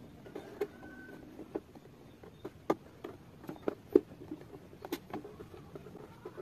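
Handling noise of a PVC model boat hull: irregular light knocks and clicks as fingers grip, tap and turn the plastic, with two sharper knocks near the middle.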